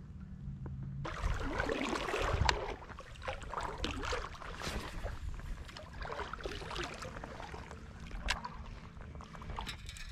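Water splashing and sloshing irregularly close to the microphone, starting suddenly about a second in, over a steady low rumble.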